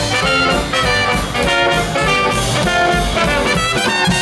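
A live jazz street band of trumpet, slide trombone, saxophone, upright bass and drums playing a brass-led tune, with quick melodic runs over a steady beat.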